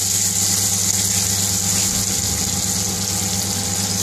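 Onion and green pepper pieces sizzling steadily in hot oil in an aluminium frying pan on a gas burner, over a steady low hum.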